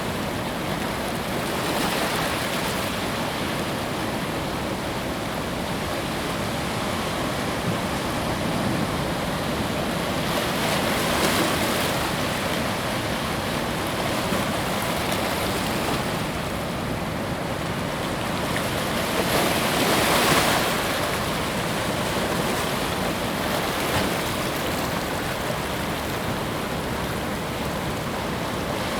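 Ocean surf washing onto a beach: a steady rush of water, with waves swelling and breaking louder about two, eleven and twenty seconds in.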